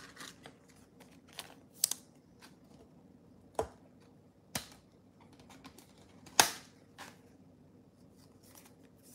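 Scattered light clicks and taps of trading cards and plastic card holders being handled, the sharpest about six seconds in.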